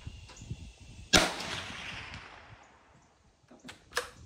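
A single shot from a Rossi RB22M bolt-action rifle in .22 WMR about a second in, its report trailing off over about a second and a half. Two smaller sharp clicks follow near the end.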